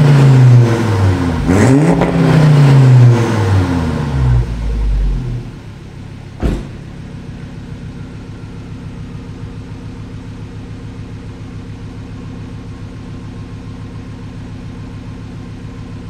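Volvo C70 T5's turbocharged five-cylinder engine through a Jetex 2.5-inch cat-back exhaust on a 3-inch downpipe, revved in blips that rise and fall in pitch, then settling to a steady idle after about five seconds. A single sharp click comes about six seconds in.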